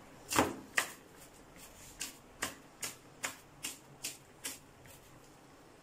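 Kitchen knife chopping green onions on a plastic cutting board: a run of sharp chops at a steady pace of two to three a second, stopping about four and a half seconds in.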